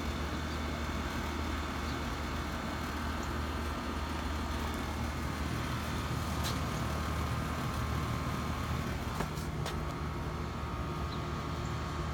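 Steady wind blowing, with a low rumble throughout and a few faint ticks, as the first light rain of a thunderstorm falls.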